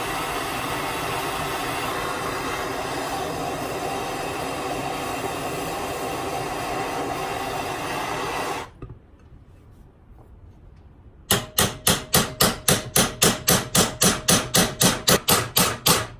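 A handheld gas torch hisses steadily as it heats a seized pin on a steering shaft held in a vise, then shuts off abruptly. After a short pause comes a rapid run of about twenty hammer blows on a drift punch, roughly four a second, as the pin is beaten on to move it over.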